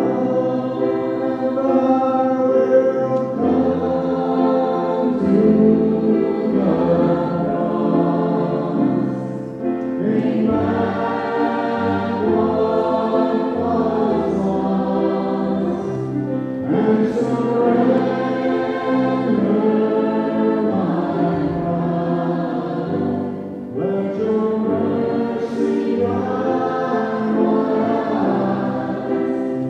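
Church choir singing a Christian song live, several voices in harmony holding long notes, with two short breaks between phrases.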